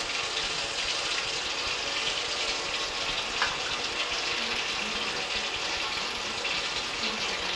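Kitchen faucet running steadily into a stainless steel sink.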